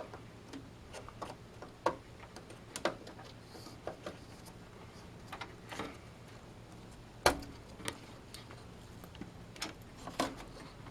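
Irregular small clicks and taps of a RAM module being handled and pressed into a desktop motherboard's memory slot, with a sharper click about seven seconds in and another near the end.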